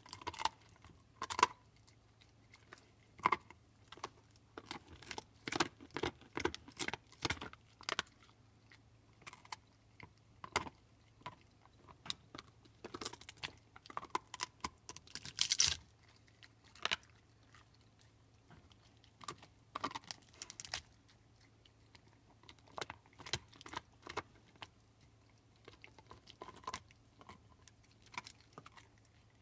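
A pit bull chewing on a big beef bone: irregular sharp crunches and cracks of teeth on bone, with the loudest run of crunching about halfway through.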